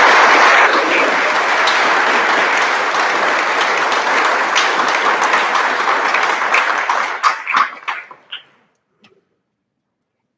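Audience applauding, thinning to a few scattered claps that stop about eight seconds in.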